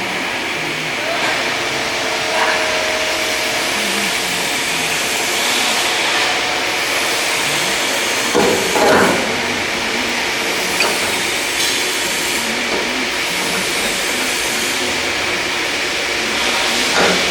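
Blue Elephant ES3-3015 stone CNC machining center running: a steady hissing noise with a constant high whine, and a few brief louder scrapes, the loudest about halfway through.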